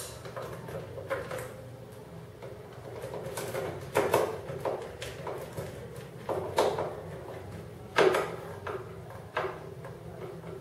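Screwdriver driving in the small screw that holds a motorcycle's plastic side cover, with a few scattered clicks and light knocks from the tool against the screw and panel, over a faint low hum.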